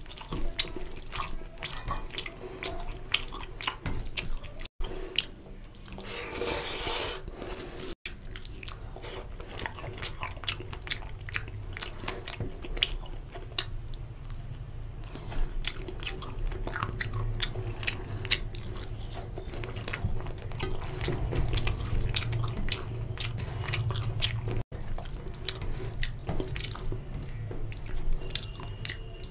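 Close-miked wet squelching and squishing of fingers kneading rice into a thin, oily fish curry, with many small wet clicks, interleaved with the smacking of mouthfuls being chewed.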